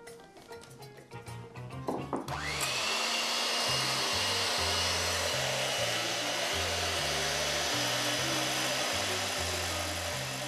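Electric hand mixer switched on about two seconds in: its motor whine rises quickly, then runs steadily as the twin beaters whip raw egg whites in a glass bowl.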